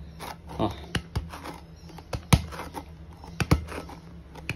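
Tacky smacks and peels of a palm pulling off and pressing onto a handball coated in spray handball glue: a series of sharp sticky clicks, the loudest about two seconds in, the sound of the glue gripping the hand.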